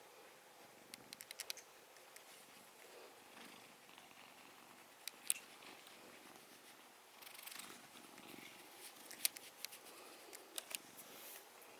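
A domestic cat purring softly. A quick run of small sharp clicks comes about a second in, and a few single clicks follow later.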